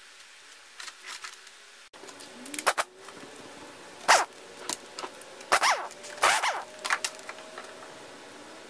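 Hand tools and metal ignition parts being worked on an outboard powerhead: a string of sharp clicks and clatters, the loudest about four and six seconds in, over a faint hum that starts about two seconds in.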